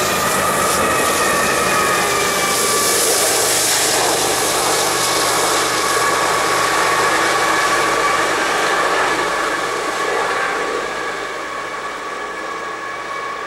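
Double-stack freight train rolling past on steel rails and receding, a steady rumble with sustained high squealing tones over it. It fades over the last few seconds.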